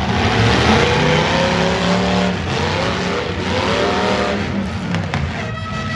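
Demolition derby cars' V8 engines revving hard over a loud, dense background of engine and crowd noise. Two revs rise in pitch, one starting about half a second in and one around three seconds in.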